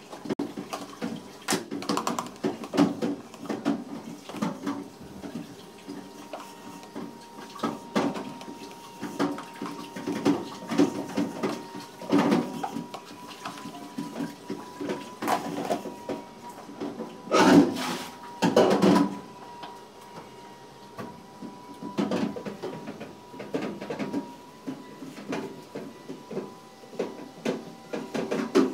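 Kitchen handling noises: irregular knocks, clatter and rustling, loudest in a short cluster about two-thirds of the way through, over a faint steady high hum.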